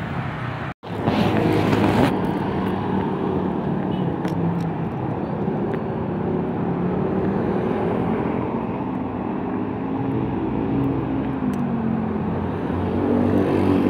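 Motorcycle engine running while riding along a road, its pitch rising and falling with speed, with wind rush on the microphone. The sound cuts out briefly about a second in.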